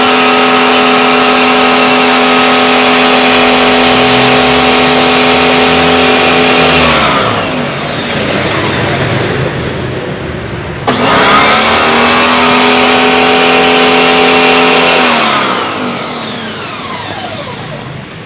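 Electric pressure washer's motor running with the hiss of the spray. It winds down to a stop about seven seconds in, starts again abruptly about eleven seconds in, and winds down again near the end.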